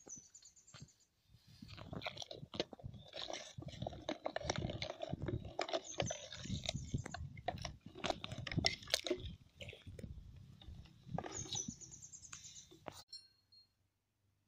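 Wooden stirring stick scraping and knocking against the inside of an aluminium pot of thick rice-flour porridge as it is stirred, in quick irregular strokes. The stirring stops about a second and a half before the end.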